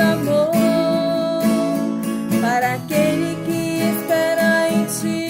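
Music: a worship song's instrumental passage led by a viola caipira, a plucked steel-string guitar, with a held melody line that slides between notes.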